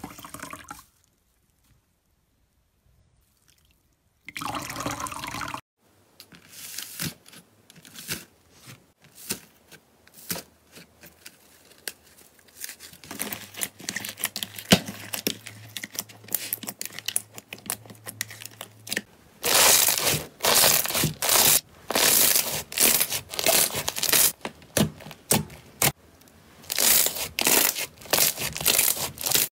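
Hands squeezing, kneading and pressing slime: wet squishing and crackling pops in irregular bursts. They are sparse at first, with a near-silent gap a second or so in, and come thick and loud in the last third.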